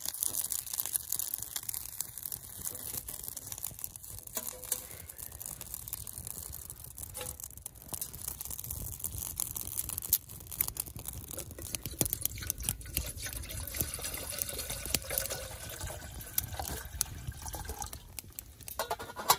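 Wood fire crackling in a stainless steel Firebox stove, with many scattered sharp snaps and a low rumble underneath from about eight seconds in.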